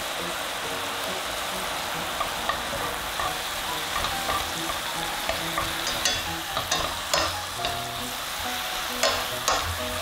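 Tofu strips and enoki mushrooms sizzling steadily in a non-stick frying pan, with a spatula scraping and knocking against the pan as it stirs them. The knocks come more often and louder from about six seconds in.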